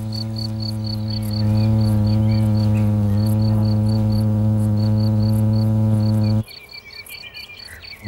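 Paper wasp (Polistes) fanning its wings on the nest to cool the brood: a steady low buzz with a clear pitch. It gets louder about a second and a half in and cuts off suddenly near the end. Behind it, a high chirp repeats about four times a second.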